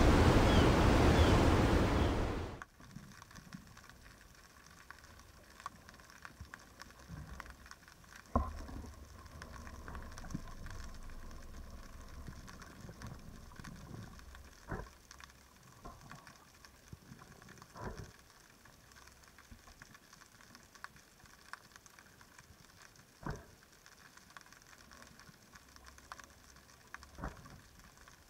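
Sea waves washing for the first two or three seconds, then an abrupt change to underwater sound: a quiet hiss with faint crackling and a handful of sharp clicks a few seconds apart.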